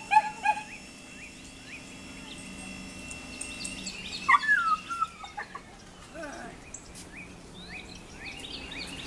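Wild birds chirping in many short, quick calls, with one louder wavering call about four seconds in.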